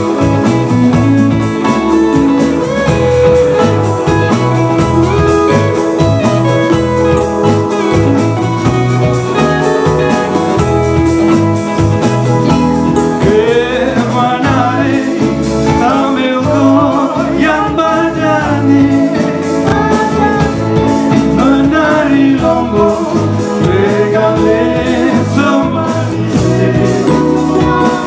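A band playing a song: guitar and other instruments over a steady beat, with a voice singing from about halfway through.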